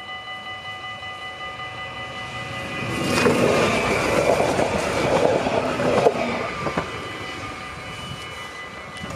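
Level-crossing warning bells ringing steadily with an even pulse, while an NS Sprinter electric train passes over the crossing. The train rises loudly about three seconds in, rumbling and clattering over the rails with a couple of sharp clacks, and fades over the last few seconds.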